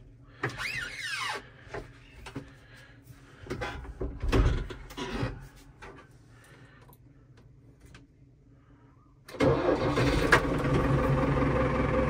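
New Holland TD 5.90 tractor's diesel engine starting about three quarters of the way in and settling straight into a steady idle, heard from inside the cab. Before it, a few knocks and a short squeak in the cab.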